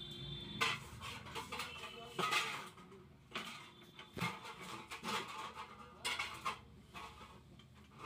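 Handling noises at a workbench: irregular rustles and light clinks as the wires and red plastic terminal cap of an immersion water heater rod are worked by hand and a screwdriver is picked up from among metal tools.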